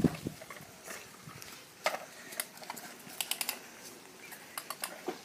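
Plastic toy vehicles being handled: a heavy thump at the start, then scattered light clicks and knocks.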